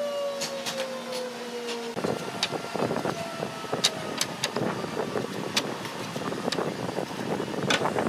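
A motor whine sliding slowly down in pitch, like a shop machine spinning down, cuts off about two seconds in. After that come a busy run of light wooden taps and clicks over workshop noise as wooden trim strips are laid and shifted on a cabinet top.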